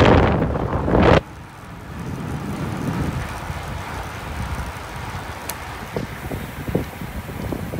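Racing bicycles sweeping past close by, with wind on the microphone: a loud rush for about the first second that cuts off suddenly, then a quieter, steadier rush with a few faint ticks.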